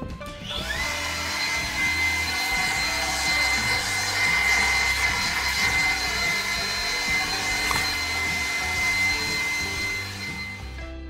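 Shop vacuum starting up with a rising whine about half a second in, then running steadily as it sucks sawdust off a wooden slab, and cutting off near the end.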